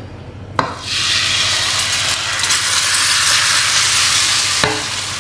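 Mung bean dosa batter sizzling as it is ladled into a hot nonstick frying pan and spread. The hiss starts about a second in and cuts off sharply near the end.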